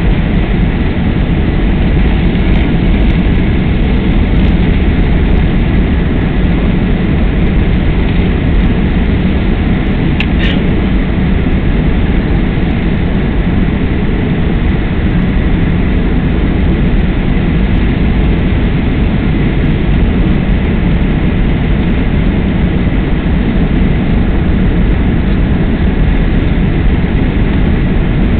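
Steady cabin noise of a Boeing 767 jetliner on approach: the engines' drone and the rush of air past the fuselage, with a short click about ten seconds in.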